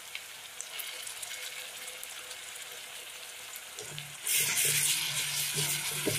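Onions and ginger-garlic-green chilli paste sizzling in hot oil in a kadai. About four seconds in the sizzle jumps much louder as a metal spatula starts stirring the paste into the oil.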